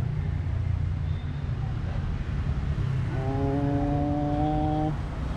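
A vehicle engine runs nearby as a steady low rumble in the street traffic. About three seconds in, a vehicle horn sounds one long, nearly level note for almost two seconds.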